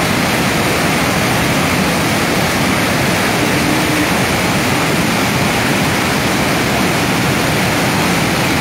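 Sakaika Falls, a large waterfall in heavy brown flood, rushing over its drop in a loud, steady, unbroken roar of water.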